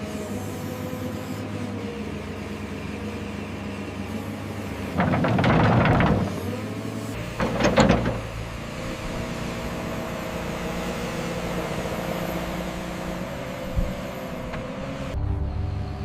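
A heavy construction machine's diesel engine running steadily. Two louder, rougher bursts of noise come about five and seven and a half seconds in.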